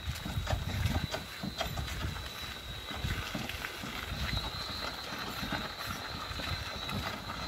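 Donkey cart loaded with wooden sawhorses and boards rolling over a dirt track: an uneven low rumble with scattered knocks and rattles from the loose wooden load.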